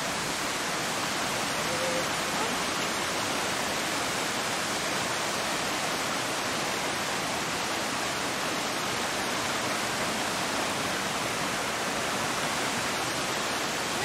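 Steady rush of a mountain waterfall and the shallow rocky stream below it, water tumbling over stones.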